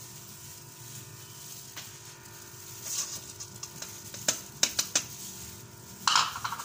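Brown sugar tipped from a small dish into a stainless-steel mixing bowl of beaten eggs, with a run of light clicks and taps from about three to five seconds in and a louder clatter of the dish near the end.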